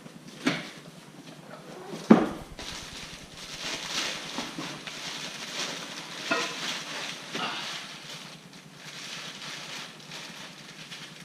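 Packaging rustling with a few scattered knocks and clunks as lift kit parts are handled and unpacked from their box. The loudest knock comes about two seconds in.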